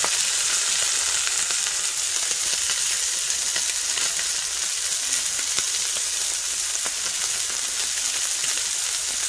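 Raw flank steak searing in a hot cast iron skillet, a steady sizzle as the first side browns.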